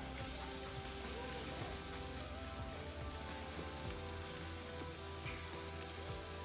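Chicken pieces sizzling on a gas grill: a steady, even hiss. Soft background music plays underneath.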